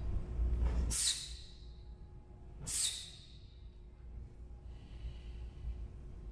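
Two sharp, forceful exhalations about 1.7 seconds apart, timed to a taekwondo practitioner's strikes, then a softer breath about five seconds in, over a low steady hum.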